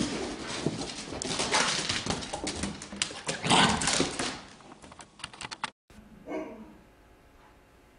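A Siberian husky yowling and grumbling in its 'talking' voice, the loudest outburst about three and a half seconds in, over a busy clatter of sharp clicks and scuffs. The sound cuts off suddenly before six seconds, leaving a quiet room with one brief faint sound.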